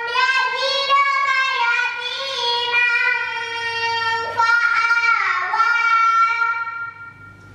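A young girl reciting the Quran from memory in a melodic chant, holding long, gliding notes. She pauses for breath about four seconds in, and the phrase ends shortly before the end.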